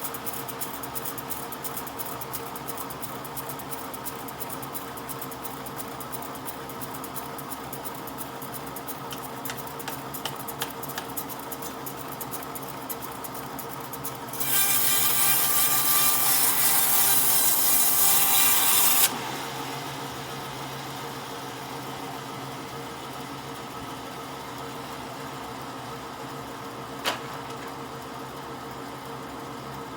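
A power tool runs with a steady hum while wood is worked, with a dense patter of small ticks. For about five seconds in the middle a much louder, harsh noise takes over, then it drops back to the hum, with one sharp click near the end.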